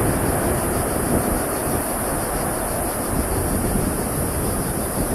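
The four jet engines of a Boeing 747-8 give a steady, loud rumble during its landing roll. A constant high-pitched buzz runs above it.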